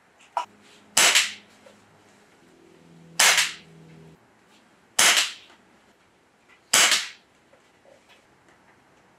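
Air Venturi Avenger Bullpup .22 PCP air rifle firing four shots, about two seconds apart, each a sharp crack with a short ring-off.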